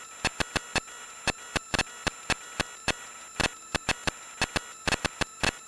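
Irregular sharp clicks and crackle, several a second at uneven spacing, over a faint steady hiss with a thin high whine.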